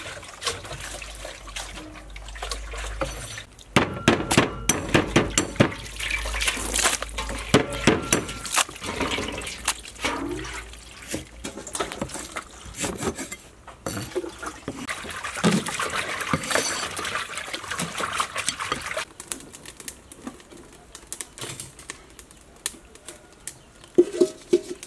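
Water splashing and pouring as vegetables are washed in plastic basins, with sharp knocks of a large knife chopping lemongrass on a wooden board.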